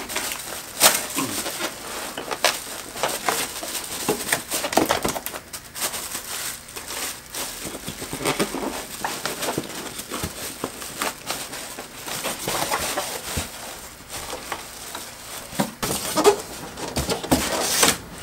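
Plastic wrapping crinkling and styrofoam packing squeaking and rubbing as a bagged sewing machine is pulled out of its foam tray, with irregular knocks and rustles throughout.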